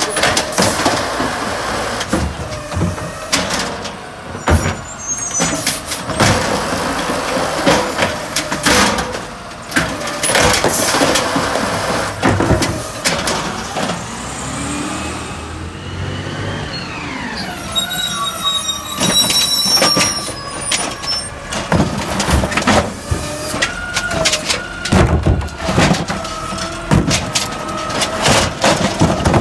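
Automated side-loader garbage truck dumping a cart: the lifted cart knocks and bangs repeatedly against the arm and hopper, and the diesel engine and hydraulics whine, dropping in pitch and then holding steady as the arm lowers. More knocks come near the end as the arm sets the cart back down on the curb.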